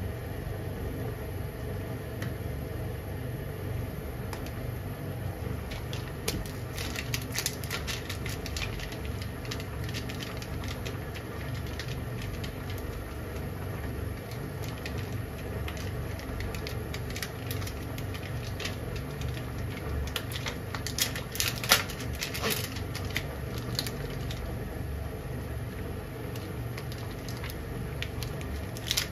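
Water with vegetables and chikuwa simmering in a frying pan on a gas stove: bubbles crackle and pop in scattered clusters over a steady low hum.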